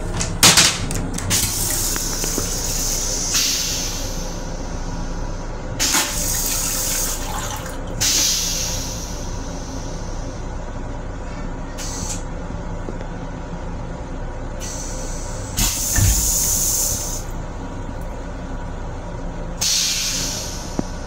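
Flush cycle of a Metro-North M7 railcar toilet: a few sharp clicks at the start, then repeated hissing sprays of rinse water into the stainless-steel bowl, each a second or two long, with a low thump about three-quarters of the way through. A steady low rumble runs underneath.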